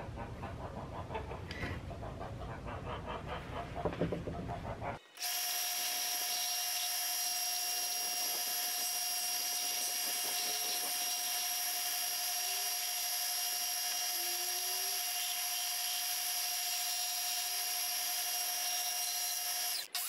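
Bench belt sander's electric motor running at a steady whine, cutting in abruptly about five seconds in. Before it come a few knocks and some rustling noise.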